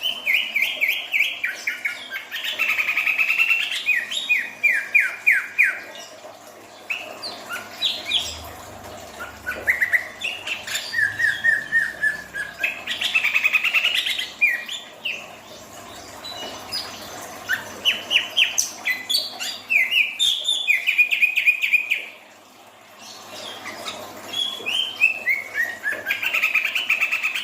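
Green leafbird (cucak ijo) singing in fast phrases of rapidly repeated chirps and falling trills, with short pauses between phrases: a male in strong breeding drive.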